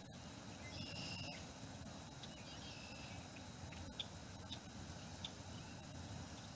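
Faint outdoor background noise with a few short, high bird chirps scattered through it and a couple of soft clicks.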